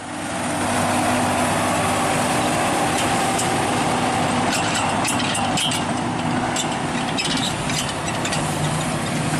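John Deere tractor's diesel engine running steadily, fading in at the start. A scatter of short sharp clicks comes about halfway through.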